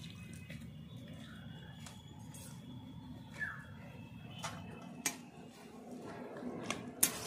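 Metal spatula clinking a few times against a metal karahi of simmering vegetable curry, the clinks coming in the second half, over a quiet steady low background.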